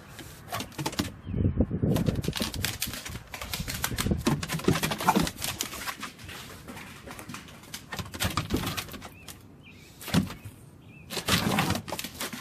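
A Shar-Pei and an English bulldog playing on a wooden deck: irregular clicking and scuffling of claws on the boards, with several louder bursts of dog breath and grunting.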